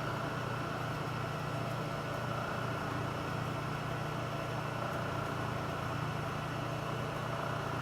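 Milling machine running steadily, its 3/8 end mill taking a light finishing cut on an aluminum pen clip, with a constant low hum and a thin steady whine.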